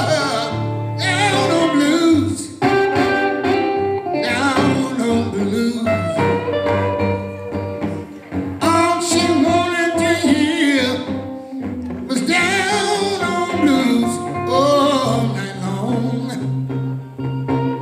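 Live blues: a man sings long phrases with a wavering vibrato over electric guitar.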